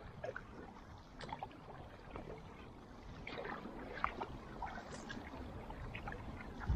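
Kayak paddle strokes on calm river water: the blades dipping in and pulling through, with small irregular splashes and drips off the blades over a low steady rush.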